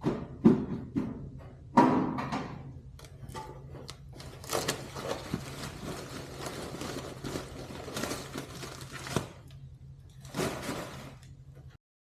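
Thunks and knocks from a metal tool box and its parts being handled, with a few sharp knocks near the start and a stretch of scraping and rustling in the middle, over a low steady hum.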